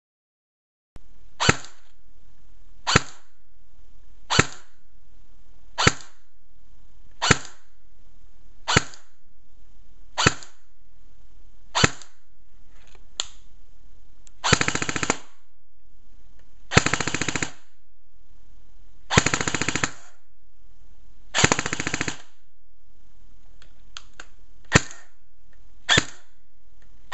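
G&G CM airsoft electric gun firing on a repaired gearbox (new piston, spring and gears). It fires semi-auto single shots about every second and a half, then four short full-auto bursts about halfway through, then more single shots near the end.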